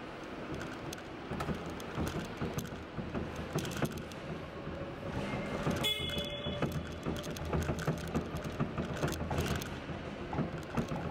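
Hyster forklift driving through a warehouse, its studded metal deck rattling and clattering with irregular knocks over the steady running noise. A brief high tone sounds about six seconds in.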